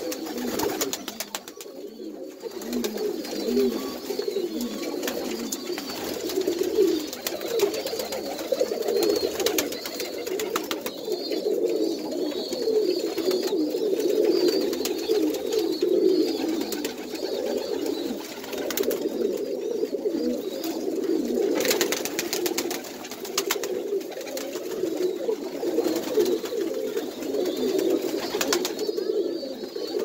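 A flock of Birmingham Roller pigeons cooing continuously in a small wooden loft, many birds overlapping into a steady warbling chorus, with scattered short clicks and rustles.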